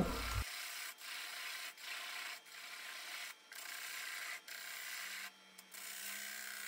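Lathe tool cutting the bottom of a spinning maple bowl to take off the tenon: a quiet, even scraping hiss of wood being cut, broken by several brief gaps.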